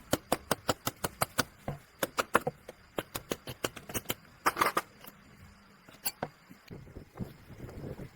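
Sharp metallic clicks and taps of hand tools and small engine parts being worked on a motorcycle engine: a quick, fairly even run of them for the first two seconds, then scattered taps, with a short scraping rattle about halfway through.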